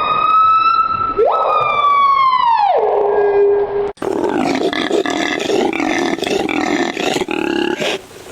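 Animal calls: one long, siren-like pitched call held high, which then slides down to a lower held note and breaks off about four seconds in. It is followed by several overlapping wavering calls.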